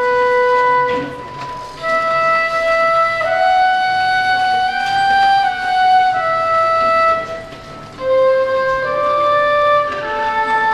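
Flute playing a slow melody of long held notes, breaking off briefly twice between phrases.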